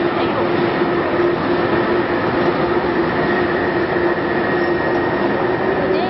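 Sawdust carbonization furnace plant running under diesel power: a loud, steady mechanical drone with a constant hum, from the furnace's burner and drive motors.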